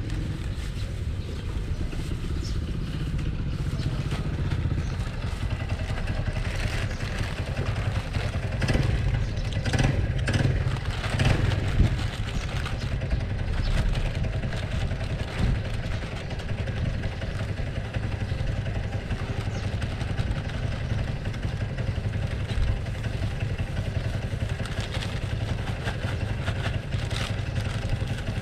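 Steady low rumble of a motorcycle engine idling close by. Over it, a plastic bag rustles and crackles in short bursts, most between about 8 and 12 seconds in.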